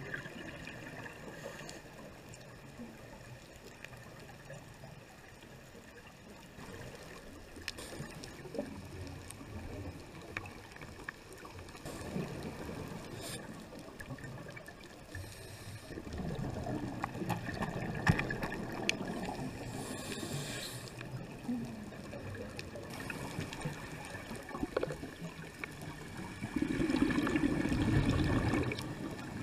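Scuba breathing heard underwater through a GoPro housing: exhaled bubbles from a diver's regulator come out in gurgling rushes every several seconds, the strongest near the end, with faint clicks between them.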